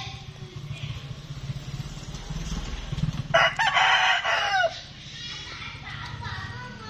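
A rooster crowing once, a loud call lasting about a second and a half a few seconds in, its end falling in pitch.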